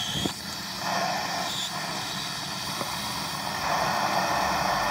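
Tap water running from a bathroom sink faucet into a plastic spray bottle held under it, rinsing the bottle out: a steady rush that grows a little louder about three quarters of the way through.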